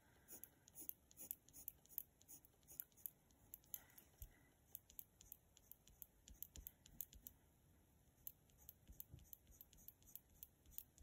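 Faint, irregular light ticks of a glitter gel pen's tip on card as small areas are coloured in.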